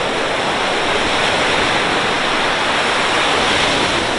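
Steady, even rush of water, loud and unbroken.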